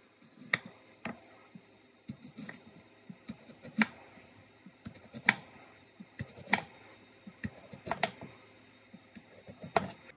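Kitchen knife slicing through a daikon radish into thick rounds. Each cut ends in a sharp knock of the blade on the wooden cutting board, about eight times at uneven intervals.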